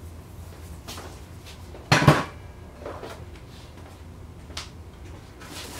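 A single hard clunk about two seconds in, a cordless drill being set down on a workbench, with a few faint knocks of handling around it.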